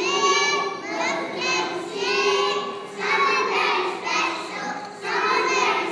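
A group of young children singing together in phrases of about a second each.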